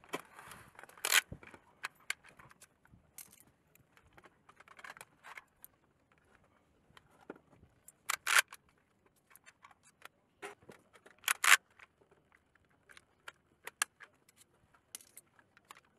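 A rifle magazine being loaded with 5.56 mm cartridges from stripper clips through a loading guide: small metallic clicks and rattles, with a few sharper snaps about a second in, around eight seconds and around eleven and a half seconds.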